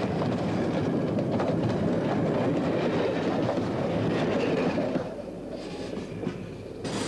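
A train running on rails with a clattering rumble. It is loud for about five seconds, then quieter as it passes, with a sudden hiss near the end.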